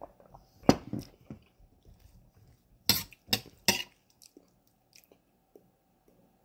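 Spoon clinking and scraping against a steel bowl as a spoonful of chickpeas and rice is scooped up, with three sharp clinks in quick succession about three seconds in. There is a knock a little earlier, and soft chewing between the clinks.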